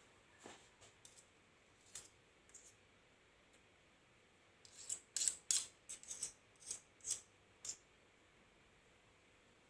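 Small sharp clicks and taps of a spoon against a jar while Vaseline is measured out: a few isolated clicks, then a quick run of louder clicks between about five and eight seconds in.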